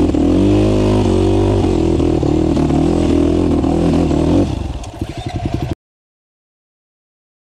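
Dirt bike engine running under way, then about four and a half seconds in it stumbles into uneven sputtering and dies, starved of fuel with the reserve not keeping it going. The sound then cuts to silence.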